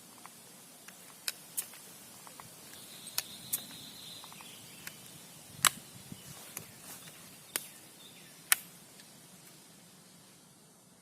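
Irregular sharp clicks and snaps, about a dozen, the loudest a little past halfway and near the end, over a faint steady outdoor hiss. A faint high buzz runs from about two and a half to four and a half seconds in.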